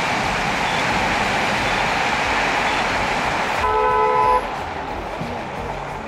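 Steady street traffic noise, then a car horn sounds once, a short honk of under a second, about two-thirds of the way in; the traffic noise is lower after it.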